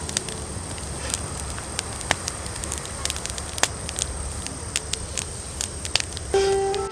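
Wood campfire crackling, with irregular sharp pops and snaps over a soft steady hiss. A few pitched music notes come in near the end.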